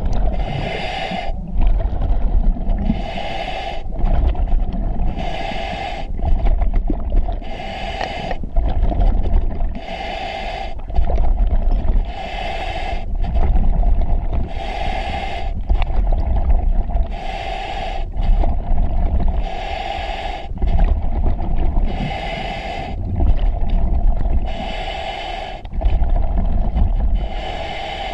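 Diver breathing on scuba through a regulator in an EXO-26 full-face mask: a hissing inhale roughly every two seconds alternating with the low, bubbly rumble of exhaled bubbles, over a steady hum.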